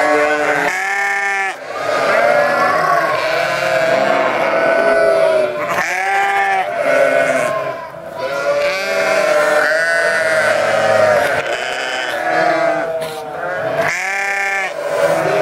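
A penned flock of sheep bleating, many calls overlapping without pause, with a few louder close bleats standing out, about a second in, around six seconds and near the end.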